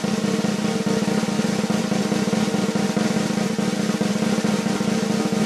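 A fast, even drum roll held at a steady level: a suspense roll building up to a jump.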